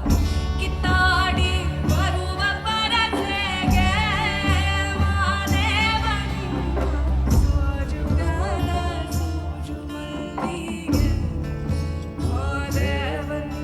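Kannada devotional folk song: a woman singing an ornamented, wavering melody over instrumental accompaniment with a steady low drone.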